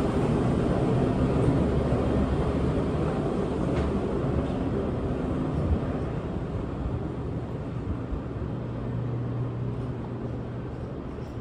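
Passenger tram running along its track, a low rumble that gradually fades away.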